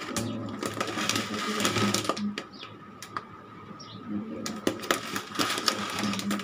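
A plastic food pouch crinkling and rustling as it is handled and turned over, in two spells with a few sharp clicks in between, over a steady faint hum.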